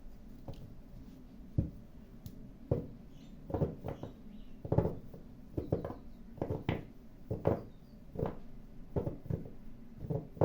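Tarot cards being laid down one after another on a table, a soft tap or slap roughly once a second.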